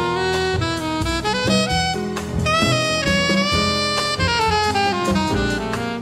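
Alto saxophone playing a flowing jazz line of quick, moving notes, with bass and drums behind it.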